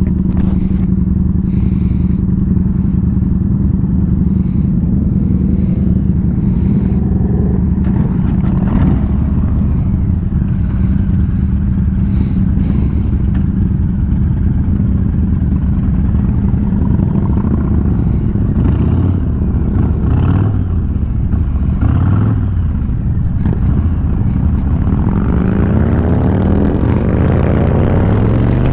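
Harley-Davidson cruiser's engine idling steadily while other motorcycles move off nearby, then revving and rising in pitch near the end as the bike pulls away and accelerates.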